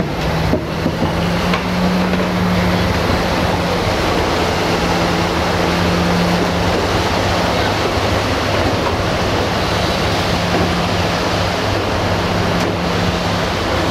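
Steady rushing noise of rain and wind on the microphone, with a steady low hum underneath.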